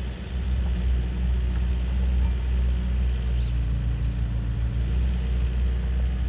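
Kobelco SK50 mini excavator's diesel engine running with a steady low rumble, growing louder in the first second and then holding level.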